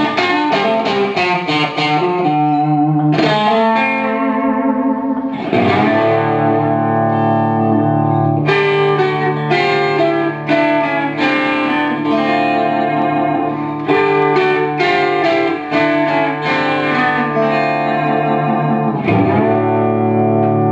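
Suhr Classic Antique Stratocaster electric guitar played through an amplifier: runs of quick notes and chords, with low notes left ringing under the playing through the second half.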